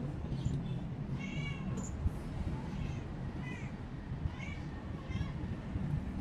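A kitten mewing: about six short, high-pitched mews spread through the few seconds.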